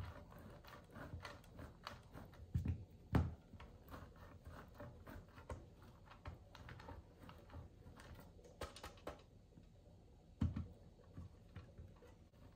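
A block of white cheddar scraped up and down a stainless-steel box grater in quick repeated strokes, with a few dull knocks of the grater on the wooden board, two about three seconds in and one near ten seconds in.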